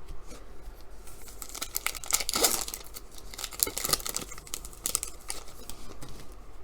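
Plastic wrapper of a trading card pack crinkling and tearing as it is ripped open, with the densest crackling about two seconds in.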